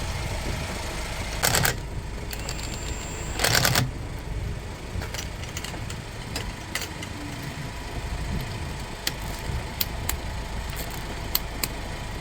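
A car engine idling with a steady low rumble, broken by two short loud rattling noises about one and a half and three and a half seconds in, then scattered light clicks of tool work.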